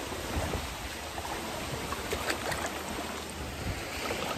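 Swimming-pool water sloshing and lightly splashing as a person swims through it, close to the microphone, with small scattered splashes.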